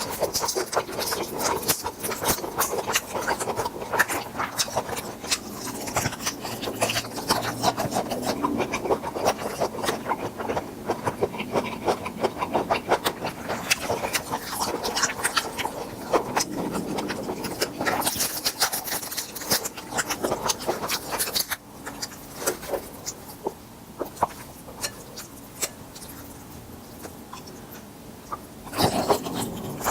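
Close-miked eating of grilled tiger prawns: dense crunchy clicks and crackles of shells and chewing, with rubbing and scraping sounds. It goes quieter for several seconds late on, then picks up again just before the end.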